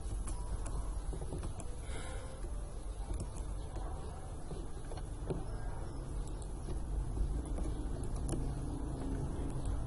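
Steady low background rumble, room noise picked up by the microphone, with a few faint scattered clicks.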